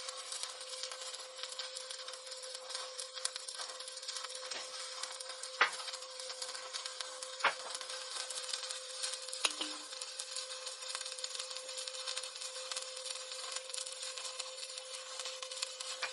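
Stick-welding (SMAW) arc crackling steadily, with a steady hum underneath and three sharper pops near the middle, each about two seconds apart.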